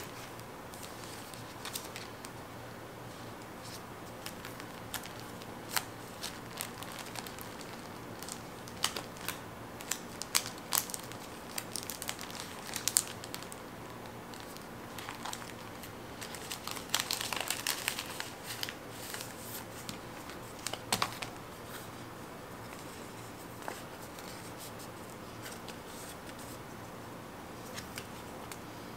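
Paper and sticker sheets being handled: scattered light clicks and taps, with a few seconds of denser crinkling a little past halfway.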